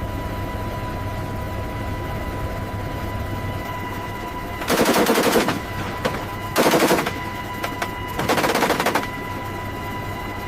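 Gatling-type rotary gun firing three short, rapid bursts, about a second long each, about five seconds in, under a steady engine drone with a constant whine.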